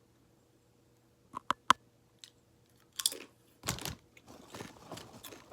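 Close-miked mouth sounds of eating crunchy Hawaiian chips: a few sharp clicks about a second and a half in, then two loud crunchy bites about three seconds in, followed by steady crunchy chewing.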